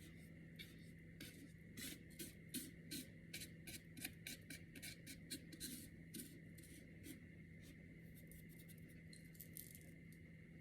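Faint, irregular light clicks and scratches of kitchen handling, over a steady low hum. The clicks cluster in the first two-thirds and thin out near the end.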